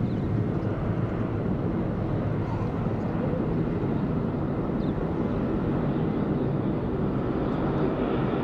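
Jet engines of a Jetstar Airbus A320-family airliner running steadily as it rolls along the runway, a continuous low rumble with no change in loudness.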